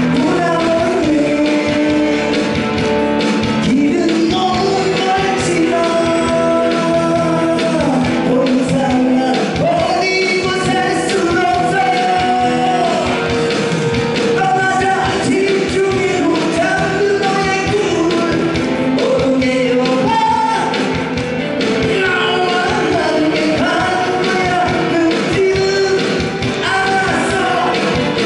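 A man sings a Korean pop-rock song into a microphone, amplified, over backing music with a steady beat.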